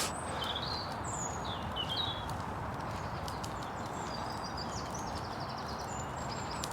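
Small songbirds calling: a few short chirps in the first two seconds and a brief trill around the middle, over a steady outdoor hiss, with faint footsteps on the path.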